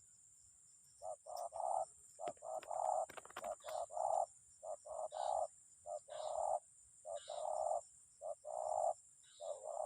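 A bird calling: short, hoarse cooing notes in quick groups of two to four, repeated over and over, starting about a second in.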